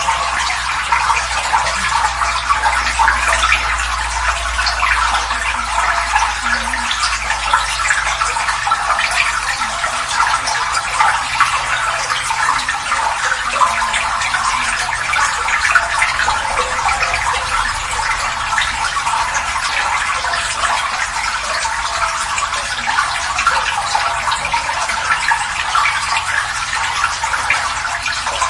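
Water pouring in a steady, unbroken stream and splashing into water below.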